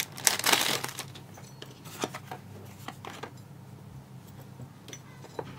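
Hand-handling noises of a small lock and parts tray: a brief rustling scrape about half a second in, then scattered light clicks.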